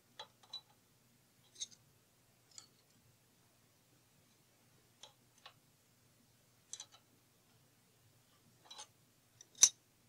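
Scattered light clicks and scrapes of a feeler gauge and hand tools being worked at the valve rocker while the valve clearance of a BMW R90/6 Airhead boxer engine is checked and set to 0.1 mm; the loudest click comes near the end.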